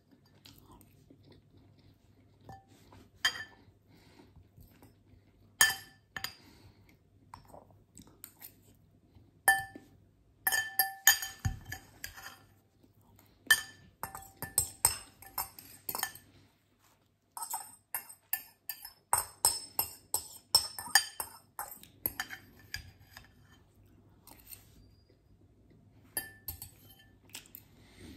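Metal fork clinking and scraping against a glass bowl in scattered clusters of sharp, ringing taps, with chewing between them.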